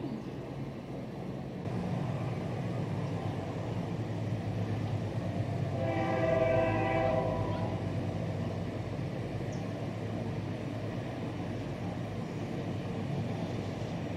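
Diesel freight locomotive of a passing freight train, with a steady low rumble. Its horn sounds once about six seconds in and is held for nearly two seconds.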